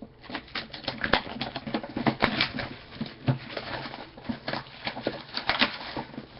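Crinkling, crackling and tearing of the plastic shrink-wrap on sealed trading-card boxes as they are cut open and handled, a dense run of irregular crackles.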